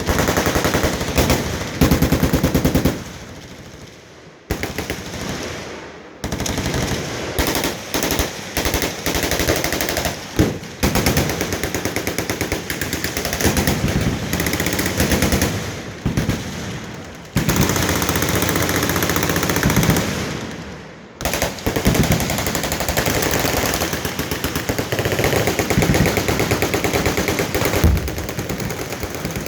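Many machine guns firing at once on a crowded firing line: overlapping long bursts of rapid automatic fire that stop briefly a few times and pick up again.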